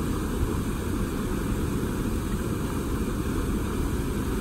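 Steady low rumbling of wind buffeting the microphone.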